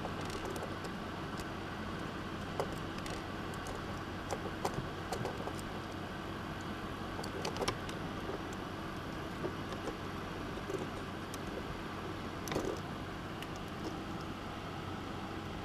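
Small metal nuts being handled and threaded onto the audio jacks of a modular-synth mixer panel: scattered light clicks and taps over a steady hiss and low hum.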